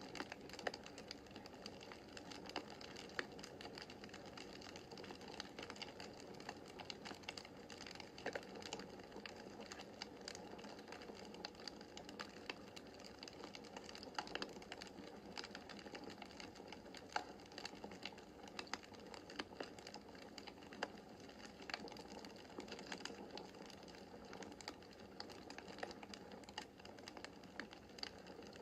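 Wood fire crackling in a fireplace: irregular sharp snaps and pops over a steady soft hiss of burning logs.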